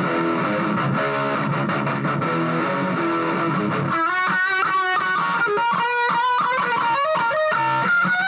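BC Rich Revenge electric guitar being played: dense chord playing for about the first half, then fast single-note lead runs from about four seconds in.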